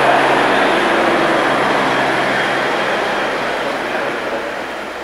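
Helicopter flying away, its rotor and turbine noise with a steady low hum gradually fading as it climbs off.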